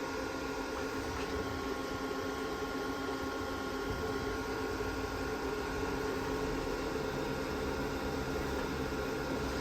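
A repaired Delta VFD-B variable-frequency drive running on a test bench gives a steady electrical hum with several steady whining tones from the drive and the motor it powers.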